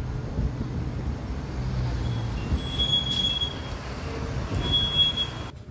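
Steady low rumble of street traffic and road noise, with two brief high squeals about three and five seconds in. It cuts off suddenly just before the end.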